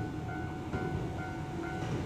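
Electronic level-crossing warning bell ringing at an even beat of about two strokes a second, over the low rumble of an approaching Shizuoka Railway 1000-series electric train, set 1012.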